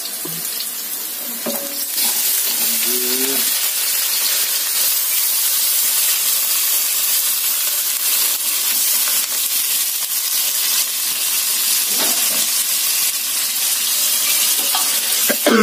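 Raw chicken pieces sizzling in hot oil in a wok as they are tipped in and stirred, a steady frying hiss that gets louder about two seconds in.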